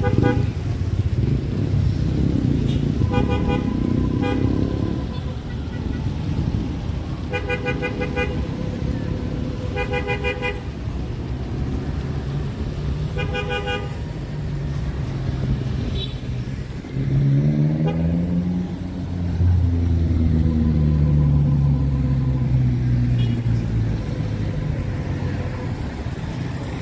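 Street traffic with vehicle horns tooting in short bursts, about six times in the first half. About two-thirds of the way through, a vehicle engine revs up and then holds steady under the traffic rumble.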